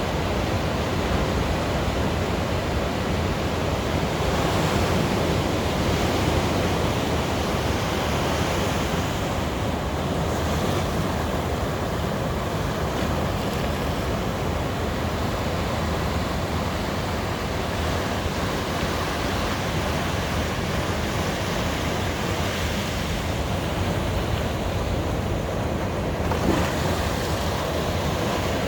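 Sea waves breaking and washing up on a beach, a steady surf rush that swells and eases a little, with some wind on the microphone.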